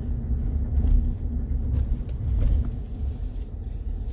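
2020 Ford Super Duty pickup with the 7.3-litre Godzilla gas V8 driving slowly, a steady low rumble heard from inside the cab.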